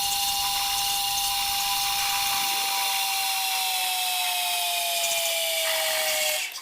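Manual metal lathe cutting a part: a steady, high whine over a hiss, the whine slowly dropping in pitch over the last two seconds and cutting off shortly before the end.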